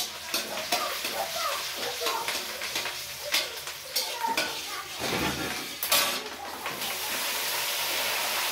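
A metal spoon stirring and scraping in a steel kadhai of hot tempering oil, with sharp clinks against the pan. About seven seconds in, chopped greens go into the hot oil and it breaks into a steady, loud sizzle.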